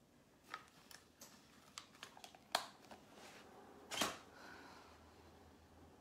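Small objects handled close to the microphone: a string of light clicks and taps over the first few seconds, then one louder knock about four seconds in.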